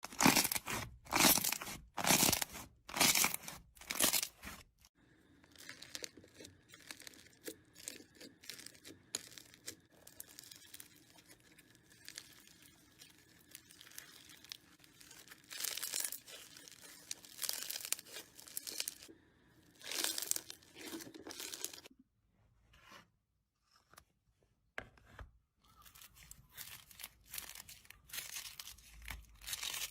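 Slime being squeezed, poked and stretched by hand, crackling and popping. A run of loud squishes, about two a second, opens it, followed by quieter crackling with a few louder squeezes and short pauses.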